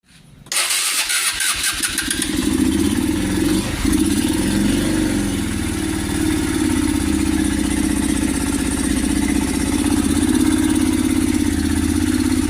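Honda CG150 Cargo's single-cylinder four-stroke engine starting about half a second in, revving a little, then idling steadily. The engine has a rattling knock that the mechanic suspects comes from a worn timing chain or worn chain guides.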